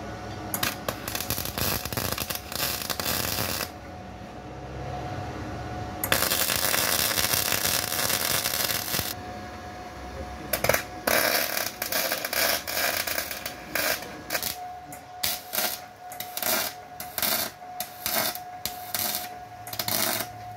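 MIG welder arc crackling on sheet steel as a repair panel is welded onto a car's front chassis. There is a longer continuous bead partway through, then a rapid series of short tack-weld bursts in the second half, over a thin steady tone.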